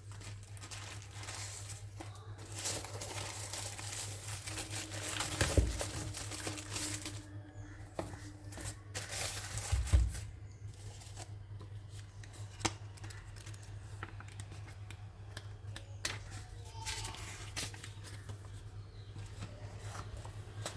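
Keyboard packaging being unwrapped by hand: crinkling and tearing of wrapping, loudest in the first several seconds, with scattered handling clicks and two dull thumps about five and ten seconds in.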